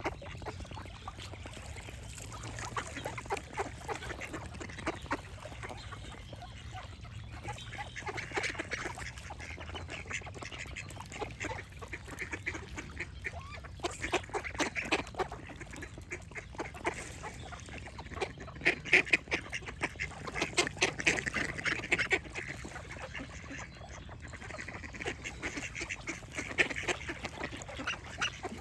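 Ducks quacking in runs of several quacks every few seconds, with other birds singing faintly behind.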